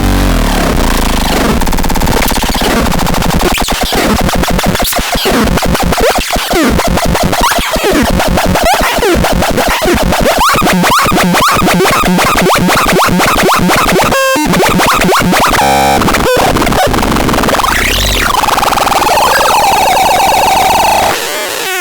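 Harsh electronic noise from the MEXADEX 2: fast stuttering pulses and swooping pitch glides, with brief drop-outs past the middle, then a held, wavering tone near the end.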